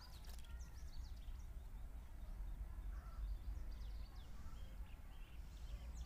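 Faint bird calls, short high chirps with a crow-like caw among them, over a steady low rumble, with soft scraping of a metal spatula stirring chicken pieces in a kadhai.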